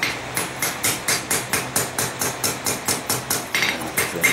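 Hammer forging a hot stainless steel knife blade on an anvil: a steady run of blows, about three to four a second, which ring out more near the end, over a low steady hum.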